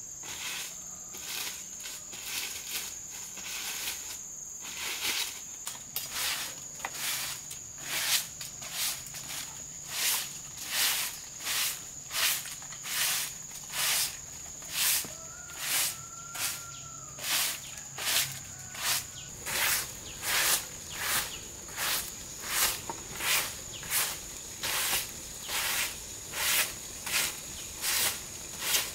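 Short hand broom swept in steady strokes over bamboo slat walkways, about one stroke a second, getting louder a few seconds in. A continuous high insect drone runs underneath.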